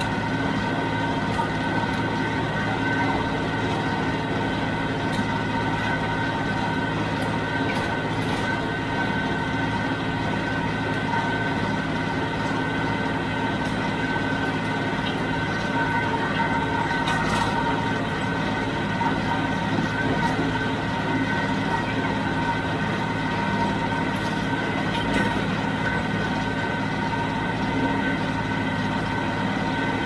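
John Deere 5055D tractor's diesel engine running steadily at working speed, driving a John Deere 348 square baler.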